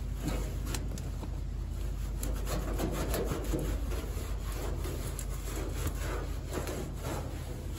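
Cloth rubbing in uneven strokes over the sanded bare-steel underside of a 1960 Cadillac hood as it is wiped down.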